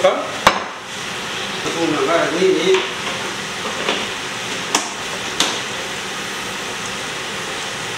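Food sizzling steadily in a hot pan, with three sharp clinks of a utensil against the pan as it is stirred.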